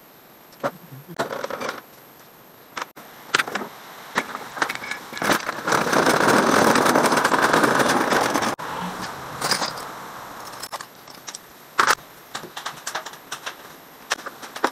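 Hand tools clinking and knocking against a metal tray and toolbox as they are gathered, with a few seconds of dense rattling clatter in the middle that stops abruptly.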